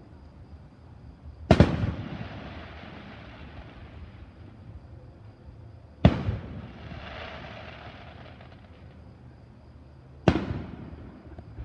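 Aerial firework shells bursting: three loud booms about four to five seconds apart, each trailing off in an echoing rumble.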